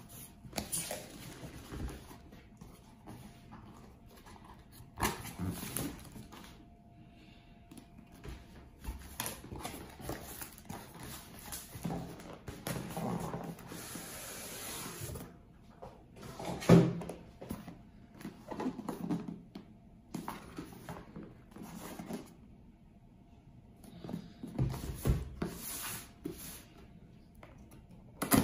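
Cardboard boxes being handled and opened by hand on a table: irregular scraping, rustling and knocks of cardboard, with one louder thump a little past halfway.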